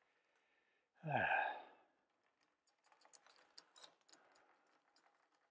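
A man's short sigh, falling in pitch, about a second in, then faint, scattered light metallic clicks from a bicycle chain being turned over in gloved hands while its power link is searched for.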